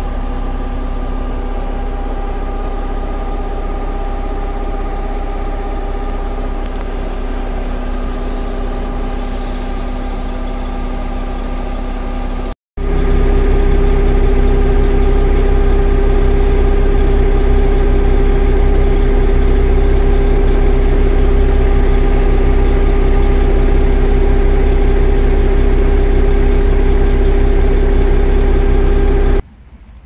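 Diesel engine and hydraulic drive of a truck-mounted concrete boom pump running at a steady idle, a constant hum with a few steady tones. It cuts for an instant about halfway through and comes back louder, then drops away just before the end.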